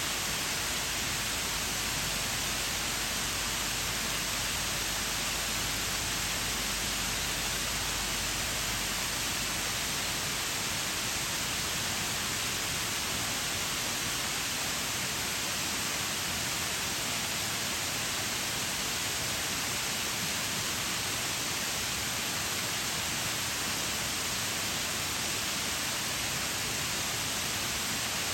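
Waterfall: a steady, unbroken rush of falling water, mostly a bright hiss.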